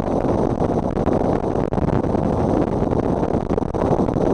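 Wind and road noise while riding a motorcycle, a steady rushing roar buffeting the helmet-mounted microphone, with a brief dip about a second and a half in.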